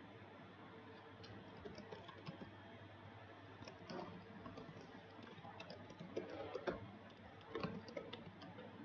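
Faint computer keyboard typing: a quick, uneven run of key clicks as a search phrase is typed, with a few louder strokes in the second half.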